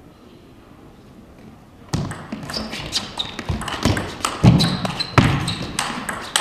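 Table tennis rally starting about two seconds in: quick sharp clicks of the ball off the rubber bats and the table, mixed with heavier thuds and squeaks of the players' feet on the court floor.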